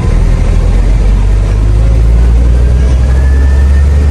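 Truck engine running with a loud, steady low rumble while manoeuvring in reverse, swelling slightly about two seconds in.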